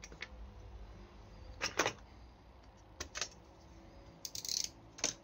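Small metal lighter parts clicking and tapping as they are handled and set down on a hard work surface: a handful of short, sharp clicks, a close pair about two seconds in. A brief rustle comes about halfway through the second half.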